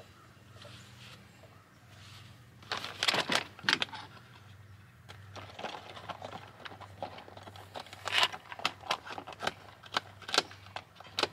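Rustling and sharp clicks of objects being handled, loudest about three seconds in and again around eight seconds, over a faint low hum.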